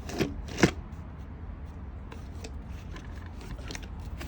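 Homemade router table fence being handled and adjusted: two sharp knocks in the first second, then a few light clicks and scrapes.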